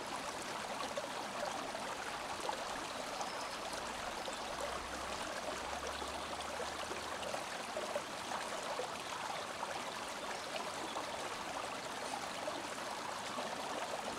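Steady, even rushing noise with a fine crackle in it, like running water, with no voice or music.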